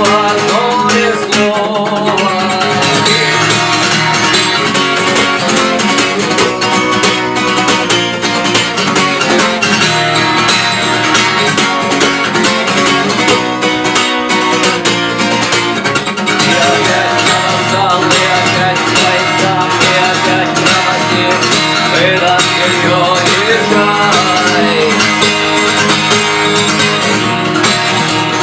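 Acoustic guitar strummed continuously in the galop pattern, a repeating down-up-down stroke, with accented and muted strokes mixed in.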